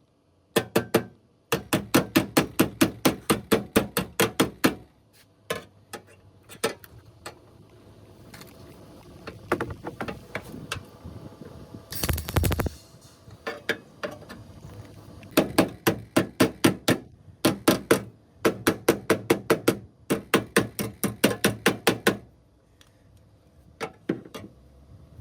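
Rapid hammer blows on metal, about five a second, in runs of a few seconds, each strike ringing briefly.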